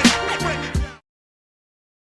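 Hip-hop style background music with a beat, which cuts off abruptly about halfway through, followed by complete silence.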